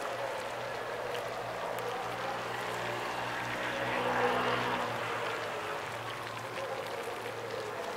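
Steady outdoor ambience: a low hum under a wash of noise that swells briefly about halfway through.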